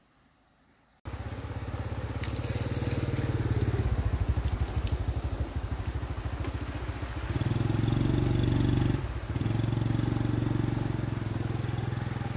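Small motorcycle engine running. It starts suddenly about a second in, grows louder about seven seconds in as the bike pulls away, and dips briefly about nine seconds in.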